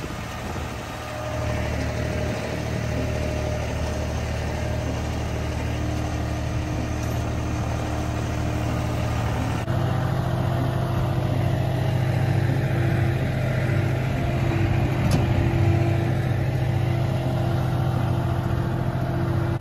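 A vehicle engine running steadily at an even speed. About ten seconds in the sound changes abruptly and is a little louder after.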